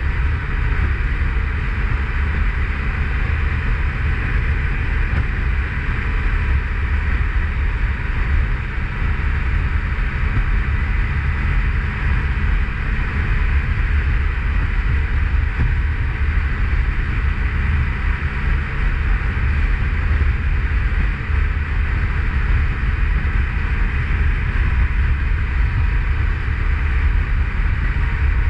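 Motorcycle riding at a steady speed: the engine running evenly under a heavy rumble of wind over the microphone.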